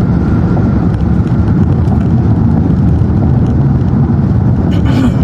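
Steady road and engine rumble inside a moving car, with a short cough near the end.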